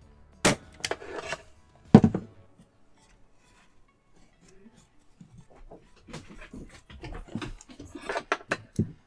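Corded electric staple gun firing staples through cloth into a wooden frame: two sharp shots about a second and a half apart near the start, the second the loudest. Later come rustling and small clicks as the cloth is stretched and the gun handled, and another shot near the end.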